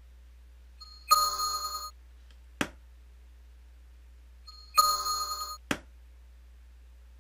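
Twice a short electronic chime from the tap-testing software sounds, the cue for a good measurement. Between and after the chimes come two sharp knocks: an instrumented impact hammer striking the face-milling cutter on the machine spindle.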